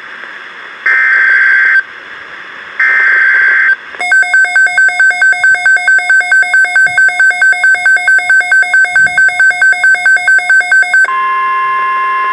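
NOAA Weather Radio emergency alert tones: two shrill bursts of SAME digital header data, then about seven seconds of rapid electronic beeping at about four beeps a second. About a second before the end, the steady 1050 Hz warning alarm tone begins.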